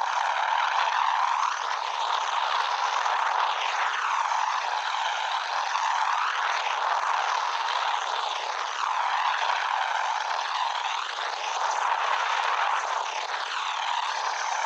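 Steady helicopter engine and rotor noise with no deep bass and a slow, repeated swishing sweep.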